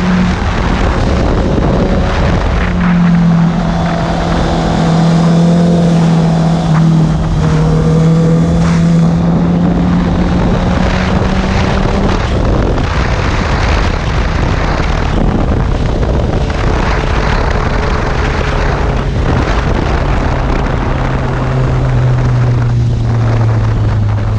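Sport motorcycle engine running at steady cruising revs under heavy wind rush on the microphone. Over the last few seconds the engine note drops lower as the bike slows.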